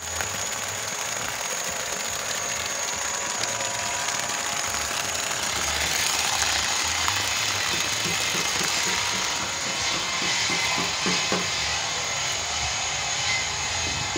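A motorised water pump running steadily, pumping water out of the well through a hose, with water gushing from the outlet pipe.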